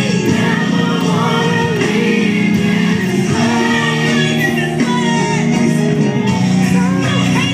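Live gospel worship music: a group of voices singing over instrumental backing, with long held notes and a moving melody.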